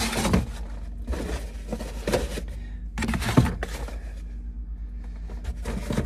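Cardboard egg cartons scraping and knocking on a refrigerator's glass shelf as they are pulled out, in several short scrapes about a second apart.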